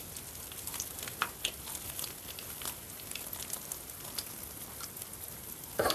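Crisp fried crust of a meat-filled biliash crackling in scattered little crunches as it is torn apart by hand, over a steady sizzle of frying oil in the pan. A brief louder sound comes near the end.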